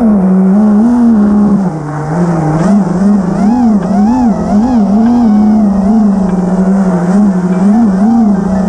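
FPV quadcopter's brushless motors and propellers whining, the pitch rising and falling repeatedly as the throttle is blipped in freestyle flight.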